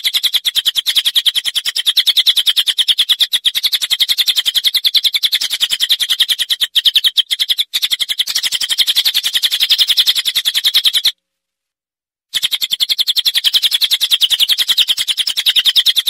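Recorded songbird chirping in a rapid, even stream of short high-pitched chirps, many per second. It cuts out completely for about a second two-thirds of the way through, then carries on the same.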